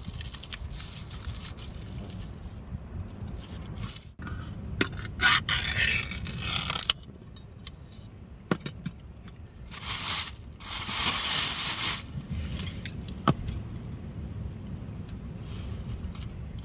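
Utensils scraping and clinking against dishes while food is prepared, with two longer, louder noisy rushes, about five and eleven seconds in.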